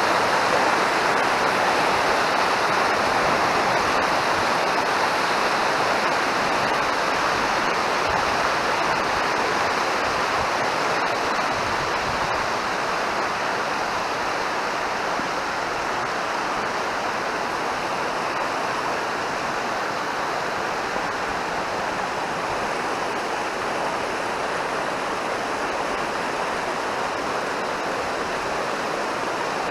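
Mountain stream rushing: a steady, even rush of water, easing off slightly over the first fifteen seconds or so.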